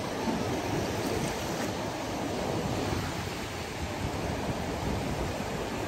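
Surf breaking and washing up a sandy beach, a steady rushing noise, with wind rumbling on the microphone.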